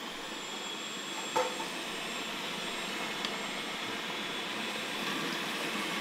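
Countertop blender running steadily, its whir building a little louder over the seconds, with a short glassy clink about a second and a half in.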